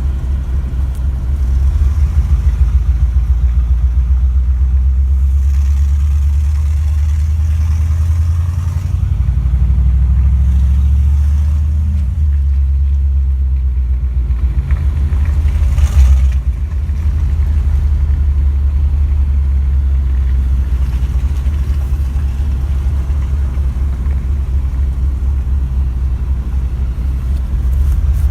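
Mercedes-Benz W126 engine and exhaust during a drive: a deep, pulsing low rumble. The engine revs up with rising pitch about nine seconds in, then settles, and there is a single sharp knock about sixteen seconds in.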